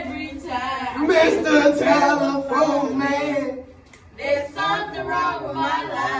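Several girls' voices singing together without instruments, with a short break about two-thirds of the way through.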